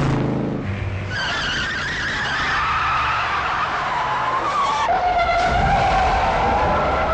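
A car engine passes at the start. Then come long tire screeches: a slowly falling squeal that breaks off about five seconds in, followed at once by a second, steadier screech.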